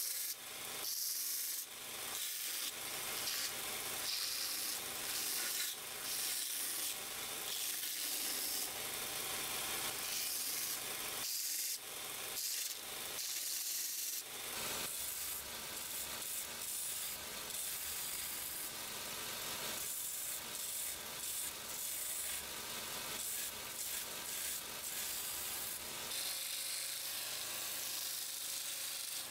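Belt grinder sanding the wooden handle scales of a knife, the wood pressed against the running abrasive belt in repeated short passes that swell and ease about once a second.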